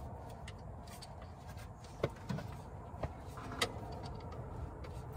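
A screwdriver working a hose clamp on a rubber fuel line at a carburettor: a few short, light clicks and knocks about two to four seconds in, over low steady background noise.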